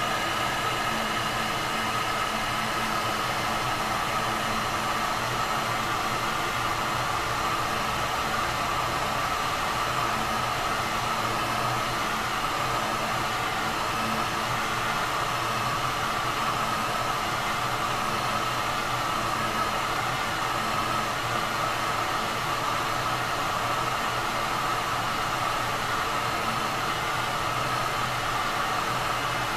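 Electric heat gun running steadily: an even hiss of blown air with a constant whine from its fan motor.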